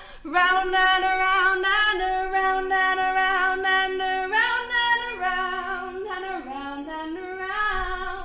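Women's voices singing unaccompanied in harmony: long held notes sit beneath a moving melody line, and the singing stops near the end.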